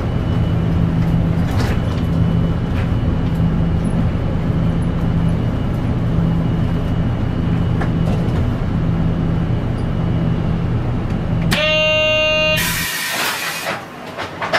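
A route bus's engine runs steadily as the bus creeps along. Near the end a loud electronic buzzer tone sounds for about a second. It is followed by a burst of compressed-air hiss as the engine hum drops away.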